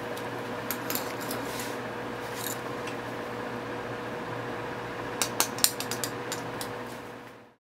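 Light clicks and taps of a hand cutter and a perfume bottle's metal spray cap being handled, with a quick cluster of sharper clicks a little after five seconds in, over a steady background hum. The sound cuts off suddenly near the end.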